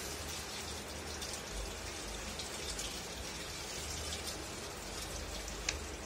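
A steady hiss like light rain, with scattered faint ticks. Near the end comes a sharp click as the plastic drip tray is pulled free of the back of the refrigerator.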